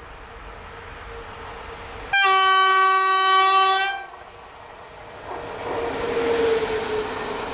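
EU07 electric locomotive sounding its horn: one steady blast of nearly two seconds, starting about two seconds in. From about five seconds in, the locomotive and its intermodal container wagons pass close by, and the rumble of the train rises.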